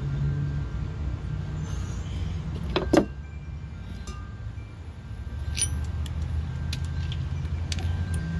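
Light metallic clinks and taps of small parts being handled, with one sharp knock about three seconds in, over a steady low rumble.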